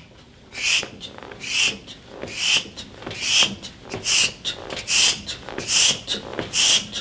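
A man's sharp, hissing exhalations, about eight in a steady rhythm a little faster than one a second, one forced breath out each time he curls up in a toe-touch crunch.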